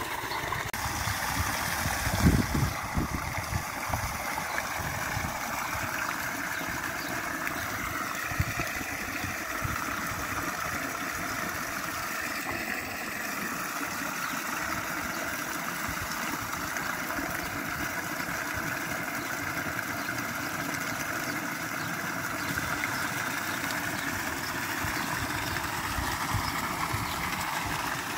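Sheet-water spouts set in a stone wall pouring into a pool, a steady splashing of falling water. A brief low thump about two seconds in.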